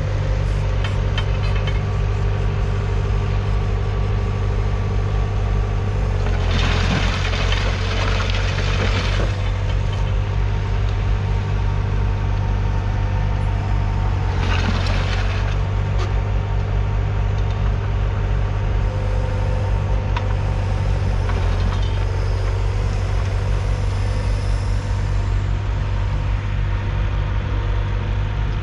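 John Deere 6210's 4.5-litre four-cylinder diesel engine running steadily, pulling a mounted plough. A few short rushing bursts of noise pass over it, the longest about six to nine seconds in.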